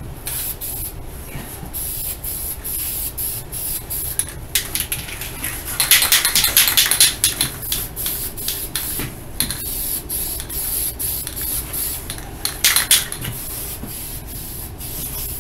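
Aerosol spray can hissing in stop-start passes as a coat of primer goes onto a plastic car bumper, louder for a second or so about six seconds in and again near the end.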